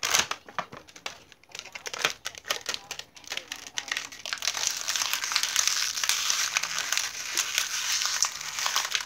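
Clear plastic toy packaging crinkling and crackling as it is pulled and torn open by hand: scattered sharp crackles at first, then continuous dense crinkling from about halfway through.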